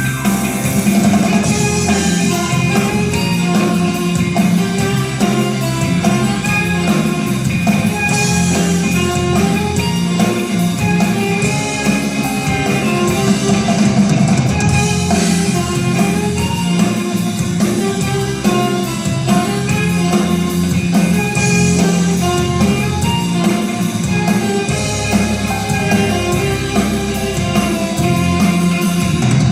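Music with guitar and drums and a steady beat.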